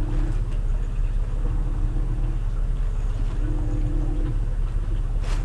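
New washing machine running with a steady low rumble. Its motor hum comes on for about a second roughly every two seconds. There is a short sharp noise near the end.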